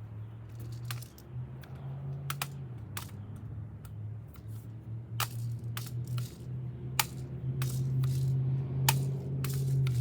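Irregular sharp clicks and clacks of a pump BB gun being pumped and readied, over a steady low hum that grows louder near the end.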